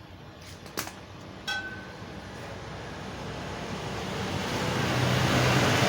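A click and then a light metallic clink as small engine parts are handled during reassembly, followed by a motor vehicle passing by: a broad noise with a low hum swelling over about three seconds to its loudest near the end.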